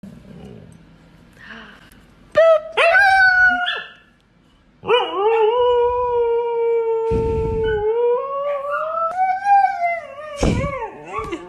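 Husky howling: a few short calls, then one long howl held steady for about four seconds that rises and falls in pitch near its end. In the last second another husky gives short, choppy yowling calls.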